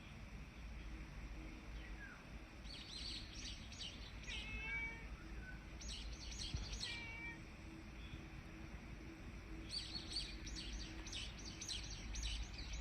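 A cat meowing a couple of times, short bending calls about four and seven seconds in, among quick bursts of small-bird chirps.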